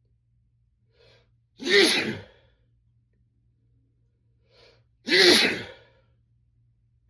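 A man sneezing twice, about three and a half seconds apart, each sneeze preceded by a short faint intake of breath. The sneezes are set off by chhinkni, a sneeze-inducing herbal snuff.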